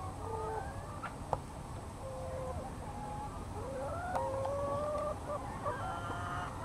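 Several brown hens clucking and calling over one another, some calls short and some drawn out and held or rising. A sharp click sounds just over a second in.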